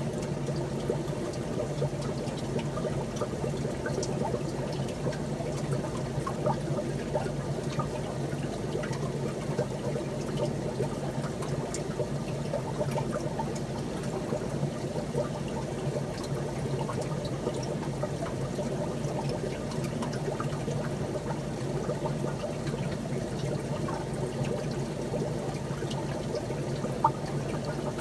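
Steady trickle of running water over a low, even hum, with a small click near the end.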